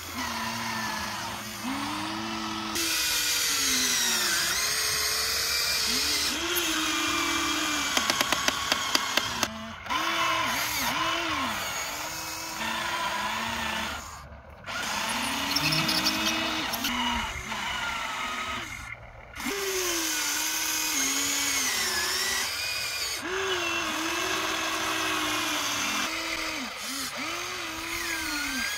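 Small electric motors and gearboxes of a Huina radio-controlled model excavator whining as it works, the whine repeatedly rising and falling in pitch. A rapid run of clicks comes about eight seconds in, and the sound breaks off briefly twice.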